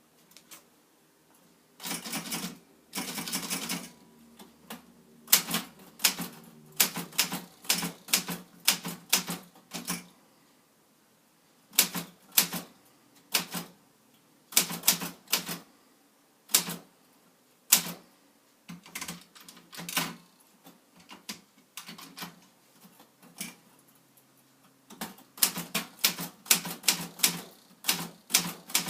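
Remington typewriter being typed on: sharp key strikes in irregular runs with short pauses between them, and a denser clatter about two seconds in.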